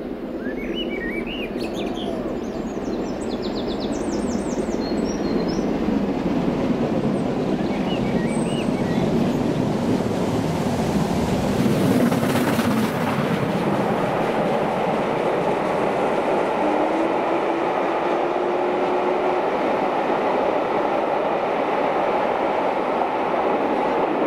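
Steam-hauled passenger train (LMS Stanier 8F 2-8-0 steam locomotive and its coaches) approaching and running past. The rumble builds over the first few seconds, is loudest about halfway through, then carries on as a steady rolling rumble. Birds chirp over it early on.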